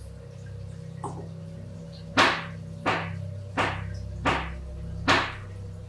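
A series of sharp knocks, about one every 0.7 seconds starting about two seconds in, each with a short ringing tail, over a low steady hum.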